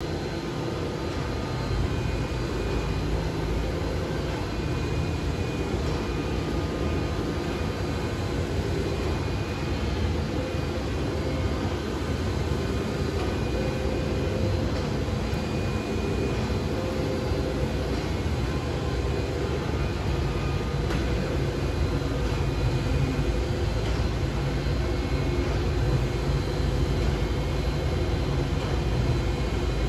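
Epson SureColor wide-format printer running as it prints vinyl wrap film, with its dryer fans: a steady, unbroken machine whir with faint high tones on top.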